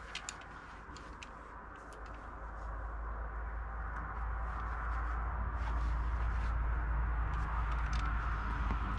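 A low outdoor rumble that grows louder over the first few seconds and then holds, with scattered light clicks from the rope and climbing gear being handled during a belayed climb.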